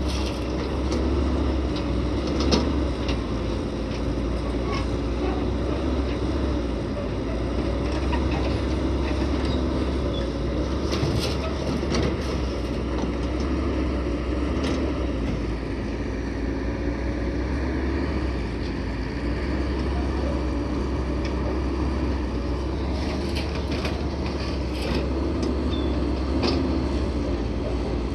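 Heavy dump truck's diesel engine running steadily with a low rumble. A few sharp clicks or knocks stand out now and then.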